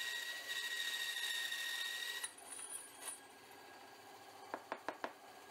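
Ryobi bandsaw running with a steady whine as it cuts a metal blank, stopping abruptly about two seconds in. Then four light clicks as the cut metal pieces are handled.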